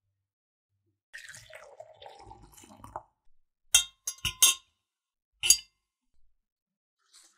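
Water splashing in a glass jug, then a metal fork clinking sharply against the glass five times.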